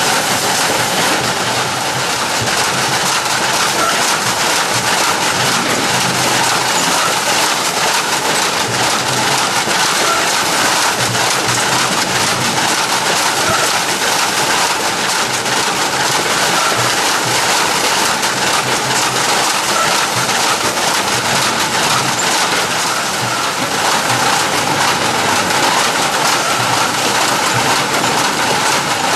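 Oranges rolling on the roller conveyor of a Giro PD2 fruit-packing machine as it runs. It makes a loud, steady, dense clatter of many small clicks, with a faint hum underneath.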